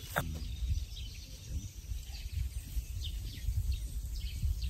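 Wind buffeting the microphone outdoors as an uneven low rumble, with faint, short bird chirps over it.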